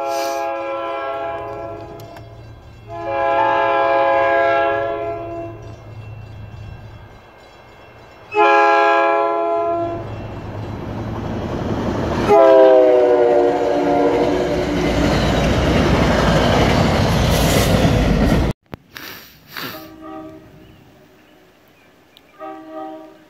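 Commuter train horn sounding four long blasts as the train approaches a road crossing, the last one dropping in pitch as the train goes by, then the rumble of the passing coaches, which cuts off abruptly. Brief, fainter horn notes follow near the end.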